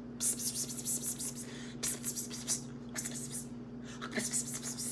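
Indistinct whispering in several short, breathy bursts, acting out a group of people whispering together, over a low steady hum.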